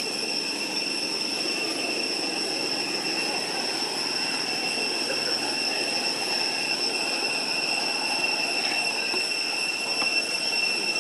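Cicadas droning steadily at a high pitch, a continuous shrill buzz that doesn't break, over a low, even background noise.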